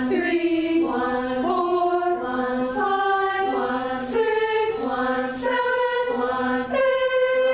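A cappella chorus singing a scale warm-up on numbers: one section holds 'one' while the other sings 1, 2, 1, 3, 1, 4 and so on, returning to 'one' between steps as the line climbs the major scale. About seven seconds in they settle on a held chord at the top.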